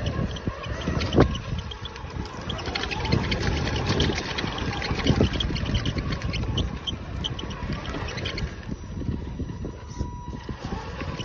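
Radio-controlled pickup truck driving over beach pebbles, with a steady rumble and many small knocks and rattles as the tyres and body bounce over stones, and a motor whine that rises and falls. The microphone rides on the truck, so the rumble is close and wind buffets it.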